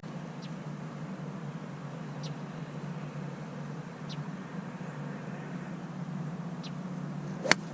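A steady low hum with a few faint high chirps about every two seconds, and near the end a single sharp click of a golf club striking a ball.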